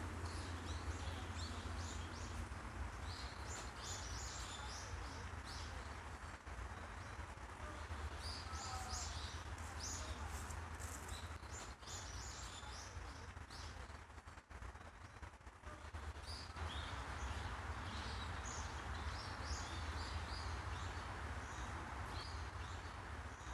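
Small birds chirping in many short, high calls, over a steady low background hum.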